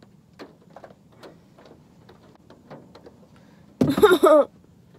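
Faint scattered clicks, then about four seconds in a short, loud vocal groan with a wavering pitch from a young woman, a sound of boredom and exasperation.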